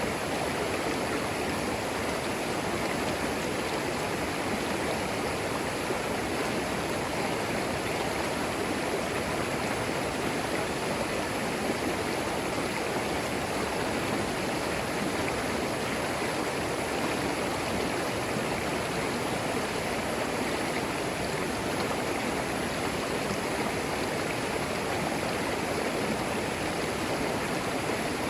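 Shallow forest creek flowing steadily over stones, a constant rushing and burbling of water.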